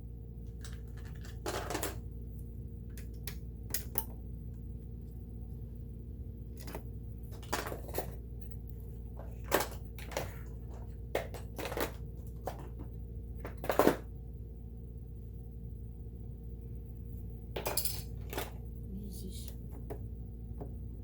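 Small metal tools and parts clinking and clicking against each other and the sewing machine as it is taken apart, in scattered, irregular knocks. A steady low hum runs underneath.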